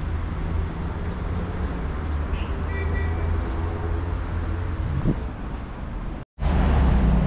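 City street traffic: a steady low rumble of passing cars, which cuts out for a moment near the end.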